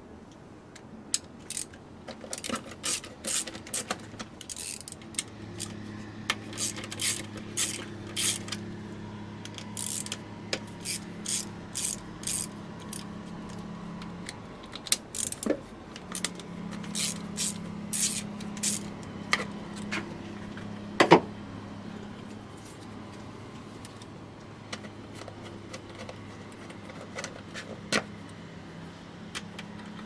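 Socket ratchet clicking in short runs as the bolts of a VW Golf 1.4 16V's plastic engine cover are worked, with one sharper knock about two-thirds of the way through.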